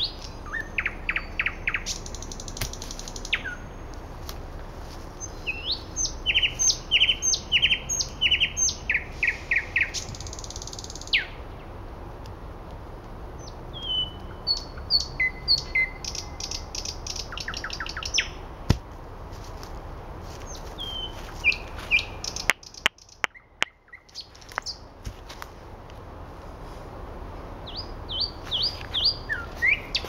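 Nightingale singing: phrases of rapid repeated notes, whistles and trills, with pauses of a few seconds between them.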